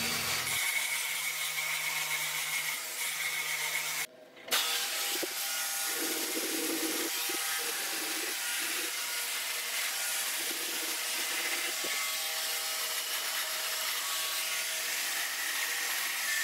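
Flexible-shaft Dremel rotary tool spinning a carving burr against wood: a steady high whine with a rasping hiss, dropping out briefly about four seconds in.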